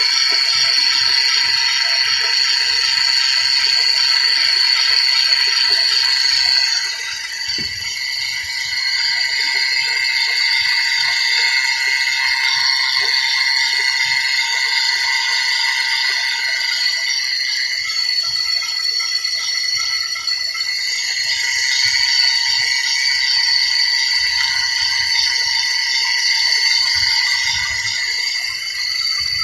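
Steady high-pitched whine from the running engine bay of a 2014 Mercedes C250, with faint clicks and handling noises underneath. The owner puts the whine down to low power steering fluid. The whine softens for a while about seven seconds in, then comes back.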